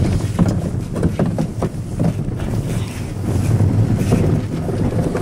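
Wind buffeting the microphone over the steady rumble of an iceboat's steel runners on the ice, with a continual rattle of short scraping clicks.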